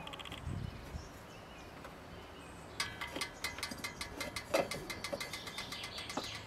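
The lid of an enamelled metal milk can is twisted and worked loose: a quick run of sharp metallic clicks and rattles, about eight a second, starting a little before halfway and thinning out as the lid comes off.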